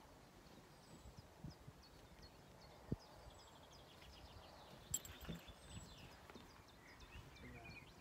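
Quiet outdoor air with a bird calling a quick series of short, high, falling notes, and two sharp clicks about three and five seconds in.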